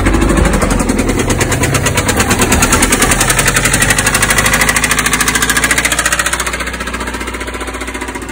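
Subaru flat-four engine running with a loud, rapid, even knocking from inside the engine, the sign of an internal mechanical fault. The sound comes in sharply and eases somewhat in the last couple of seconds.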